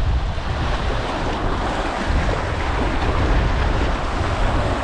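Sea surf washing and foaming around shoreline rocks, with wind buffeting the microphone in a steady low rumble.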